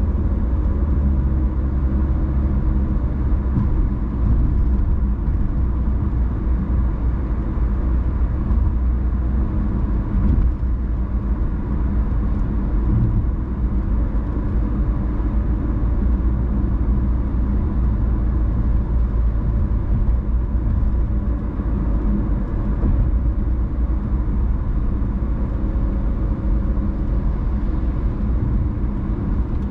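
Car driving on city streets: a steady low rumble of road and engine noise.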